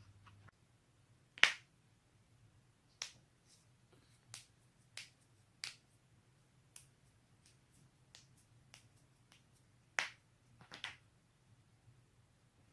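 Knee joints cracking: a dozen or so sharp, separate pops at irregular intervals, the loudest about a second and a half in and another loud one about ten seconds in, over a faint low hum.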